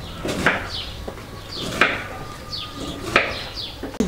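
Knife slicing through fresh cabbage and knocking on the cutting surface, three crisp cuts about a second and a half apart.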